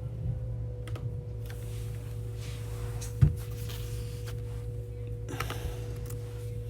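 Faint computer keyboard typing and clicking over a steady electrical hum, with one dull thump about three seconds in.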